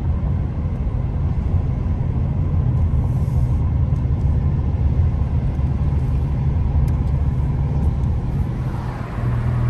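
Car heard from inside the cabin while driving: a steady low rumble of engine and tyre road noise.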